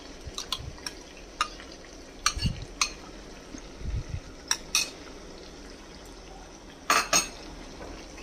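Steel spoon clinking and scraping against a glass bowl and a steel kadai as thick whisked yogurt is spooned onto minced mutton: about ten sharp clinks with a few soft thuds, the loudest pair about seven seconds in.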